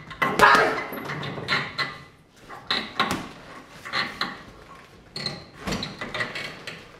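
Boxing gloves thudding into a hanging heavy punch bag, a run of irregular punches and short combinations with brief gaps between them.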